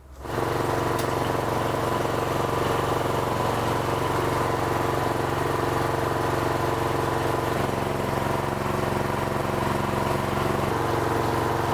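Craftsman snowblower's single-cylinder engine running steadily; its tone shifts for about three seconds in the second half, then returns.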